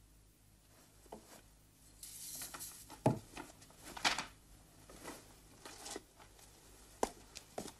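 Sheets of paper rustling and being handled, with a few sharp taps and knocks, the loudest about three and four seconds in.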